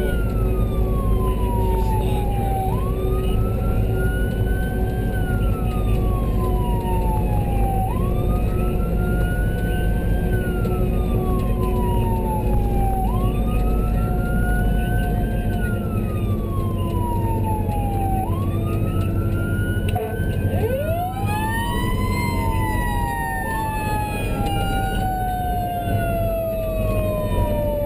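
Emergency vehicle siren wailing in slow rising-and-falling cycles, about one every five seconds, over a steady engine and road rumble. About twenty seconds in, a second, lower siren winds up quickly and then falls slowly in pitch.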